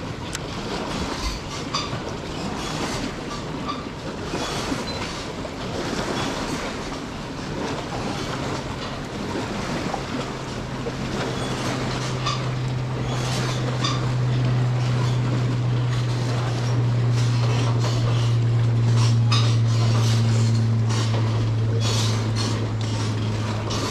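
A motorboat engine droning steadily, building up from about ten seconds in and holding on, over a constant wash of water with many small knocks and splashes against the boat.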